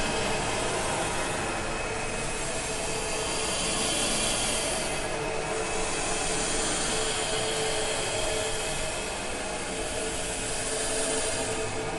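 A steady, dense noise drone with a few held low tones running through it, swelling in its upper hiss about five seconds in and again near the end: a made sound-effects track for the installation.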